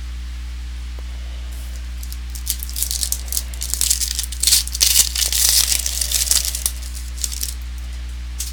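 Trading card pack wrapper and cards being handled, with crinkling and rustling starting about two seconds in and easing off near the end.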